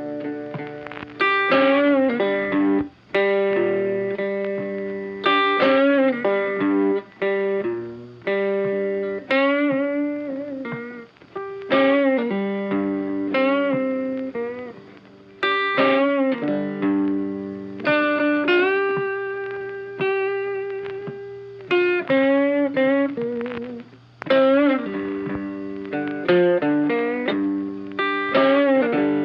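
Background music: an electric guitar playing plucked, bending melodic phrases, each note fading before the next.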